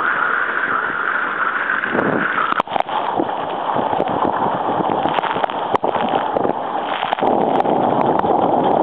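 Water rushing and splashing around a surf ski as it is paddled through the sea, with wind buffeting the microphone. A few brief sharp knocks come through the rush.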